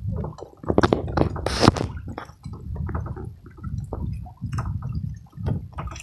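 A wet fishing net being hauled by hand over the side of a small boat: water splashes and drips off the mesh, with irregular knocks and rustles against the hull. A sharp knock about a second and a half in is the loudest sound.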